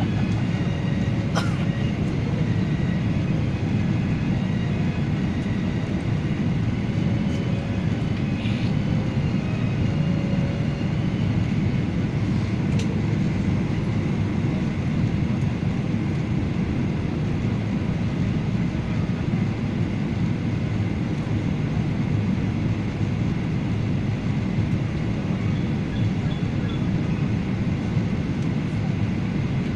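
Steady low rumble of an airliner heard from inside the passenger cabin, with a few faint clicks.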